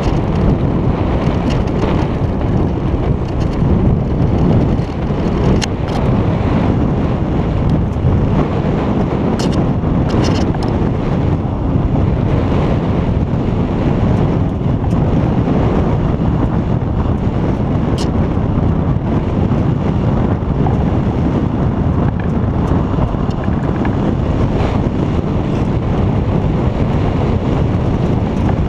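Wind buffeting the microphone of a GoPro hoisted to the top of a sailboat's mast: a loud, steady, rushing rumble, with a few sharp clicks scattered through it.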